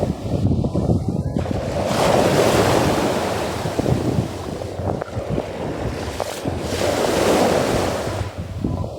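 Sea waves washing onto the shore, the surf swelling twice about five seconds apart, with wind buffeting the microphone as a low rumble.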